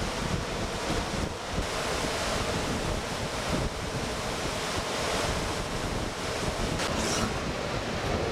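Steady rushing of whitewater river rapids and falls, mixed with wind buffeting the microphone as a low rumble.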